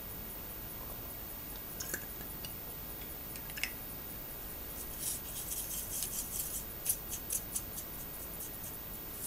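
A thin stick stirring paint in a small metal enamel paint tin, clicking and scraping against the tin in a quick run of light ticks through the second half. A few single light clicks come earlier.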